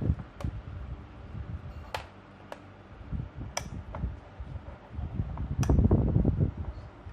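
Handling sounds of multimeter test probes and a kettle base and plug being moved about: a handful of sharp separate clicks and taps, with a stretch of low rumbling handling noise about two-thirds of the way in.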